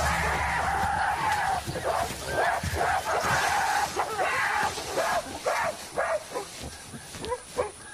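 Mountain gorillas calling out in an aggressive clash within the group. A long call comes in the first second or so, then a string of short calls that rise and fall in pitch and grow fainter toward the end.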